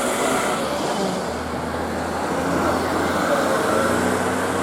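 Road traffic: a motor vehicle running close by, with a steady low hum that sets in about a second in over even road noise.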